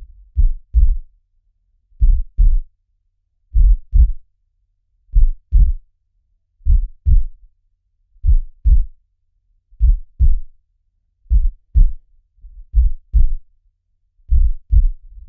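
Heartbeat, slow and steady: paired low lub-dub thumps, about one beat every second and a half.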